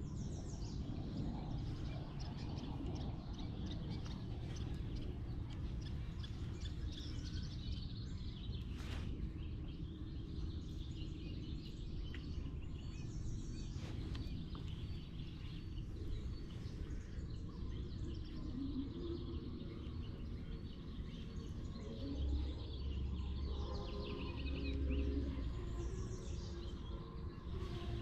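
Birds chirping now and then over a steady low background rumble. The rumble swells for a few seconds about three quarters of the way through.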